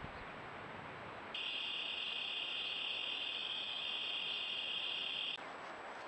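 Insect trilling steadily at a high pitch, starting about a second in and cutting off abruptly after about four seconds, over a steady hiss.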